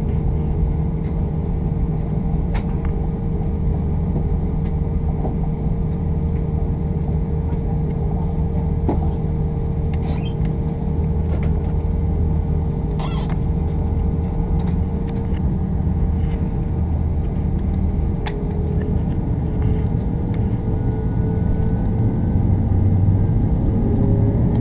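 Cabin sound of an Airbus A340-600's four Rolls-Royce Trent 500 engines while taxiing: a steady low rumble with a steady whine, and a few faint clicks. Near the end a whine starts rising in pitch and the sound grows louder as the engines spool up for the takeoff roll.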